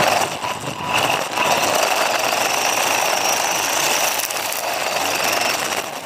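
WLToys 144001 RC buggy driving fast over dirt, heard from a camera mounted on the car itself. The electric motor's steady high whine sits over the rattle of the chassis and the hiss of the tyres on loose gravel. The sound starts abruptly as the car sets off.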